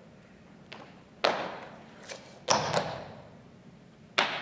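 A dancer's feet stamping and landing on a wooden stage floor: three loud thuds, the first about a second in, then near the middle and near the end, each ringing briefly in the hall, with a few lighter taps between.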